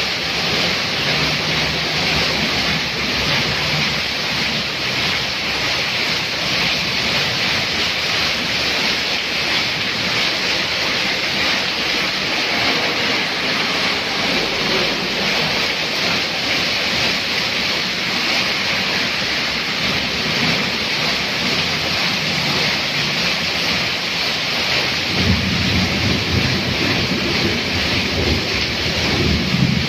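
Heavy rain falling steadily, with water pouring off a roof edge and splashing on a flooded road. A low rumble comes in about 25 seconds in and again near the end.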